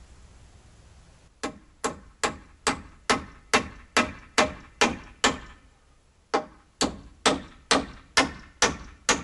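Hammer driving nails into wooden framing boards, quick even blows at a little over two a second: a run of about ten, a pause of about a second, then another run.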